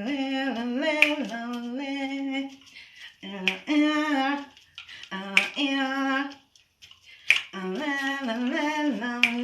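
A woman singing a wordless melody alone, with no accompaniment, in short phrases of held and stepping notes. A few sharp clicks come in among the phrases.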